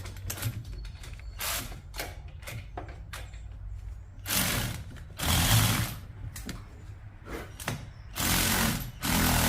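Cordless power tool driving exhaust-header bolts in four short bursts in the second half, after some light metal clicks of tool work. Its battery is running low.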